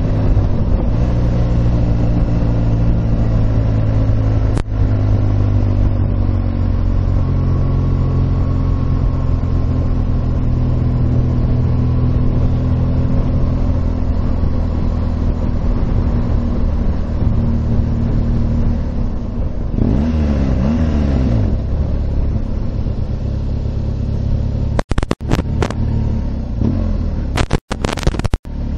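Motorcycle engine running steadily under way. About two-thirds of the way through the pitch dips and rises again as the revs change. Near the end there are several sharp clicks and brief drops in level.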